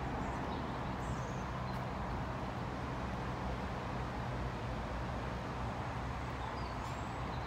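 Steady outdoor background noise with a low, even hum underneath, and a few faint, short high chirps.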